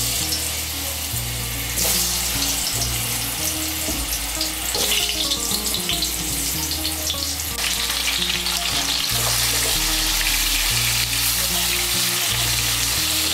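Cubes of sweet pumpkin frying in hot oil in a kadai: a steady loud sizzle that grows fuller in the second half as more pieces go into the oil and they are stirred.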